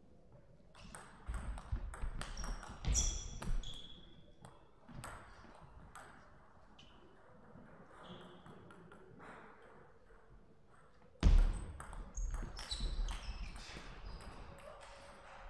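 Two table tennis rallies: the celluloid ball clicking off bats and table in quick runs, with short high squeaks of shoes on the court floor. A loud thump about eleven seconds in, the loudest sound, is followed by another run of ball clicks.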